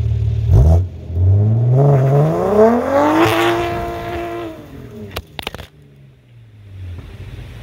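BMW B58 3.0-litre turbocharged inline-six exhaust idling, then revved: after a short blip the note climbs for about two seconds and falls back. Two sharp pops come as the revs drop, then it settles to a low idle.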